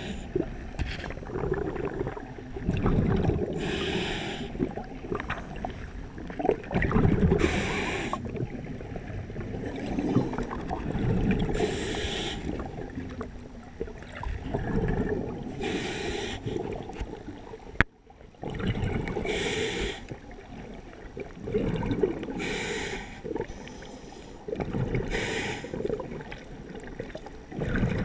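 Scuba diver breathing through a regulator underwater: a hissing inhale every three to four seconds, each followed by the low bubbling of exhaled air. A single sharp click about two-thirds of the way through.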